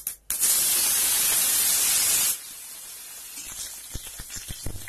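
Fresh curry leaves hitting hot oil with spluttered mustard seeds in a stainless steel kadai: a loud sizzle starts suddenly and holds for about two seconds, then drops to a quieter sizzle with scattered crackles.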